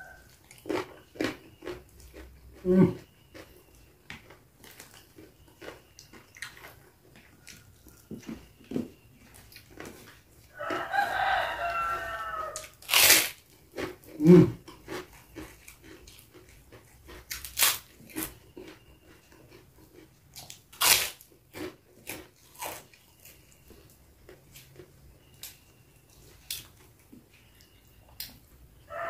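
Close chewing and crunching of food, with sharp crunches and mouth clicks scattered throughout. A rooster crows once for about two seconds near the middle.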